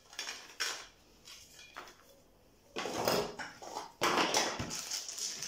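Plastic bags of board-game pieces crinkling and rustling as hands rummage through a cardboard game box, with a few light clicks of components. The handling comes in short bursts: a couple of brief rustles at the start, a quiet pause, then longer rustling from about three seconds in.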